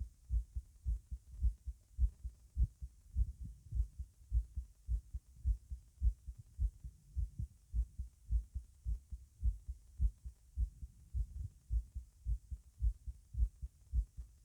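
A person's heart heard at the tricuspid area while standing, beating fast and strong: a steady run of low thumps, about three a second.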